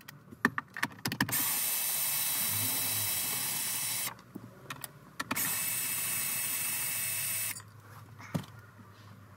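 Cordless drill-driver backing out two long 8 mm bracket bolts: a few clicks, then the motor runs steadily for about three seconds, stops, and runs again for about two seconds.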